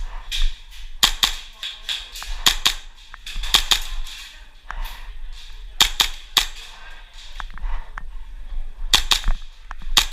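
Airsoft guns firing: sharp snapping shots, some single and some in quick clusters of two or three, scattered irregularly.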